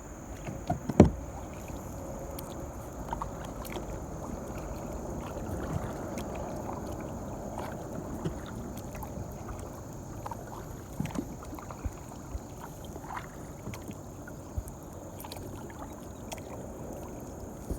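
Kayak on a river: steady water noise around the boat, with scattered small knocks on the hull and one sharp knock about a second in.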